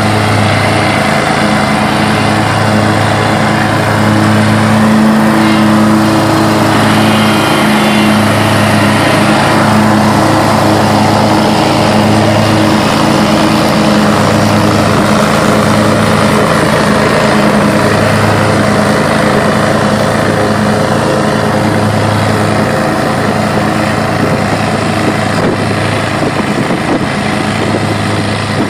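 Hustler Super Z zero-turn mower running under load as it cuts tall grass: a loud, steady engine drone with the blade noise over it, the low hum swelling and easing every second or two.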